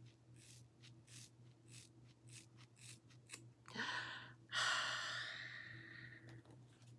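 Hair shears snipping through a thick banded ponytail of hair, a quick run of about ten cuts. About four seconds in comes a loud breath that fades over a second and a half.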